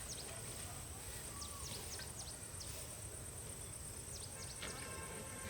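Outdoor ambience of small birds chirping in short, quick downward chirps, over a steady high insect drone. A brief tonal call comes in near the end.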